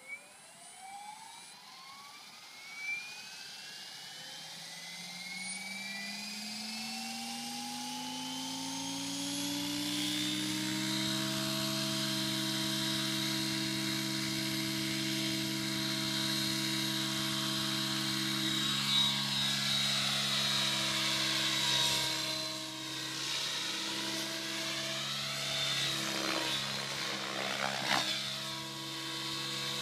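T700 radio-controlled model helicopter spooling up from rest: the whine of its rotor and drivetrain rises in pitch over about ten seconds, then holds steady as it lifts off and hovers. In the last third the pitch and loudness swoop up and down as it flies manoeuvres.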